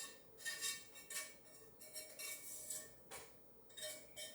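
A metal spoon scraping and knocking against a pot as browned meat is spooned into pasta and stirred, a string of short strokes roughly one or two a second with a faint metallic ring.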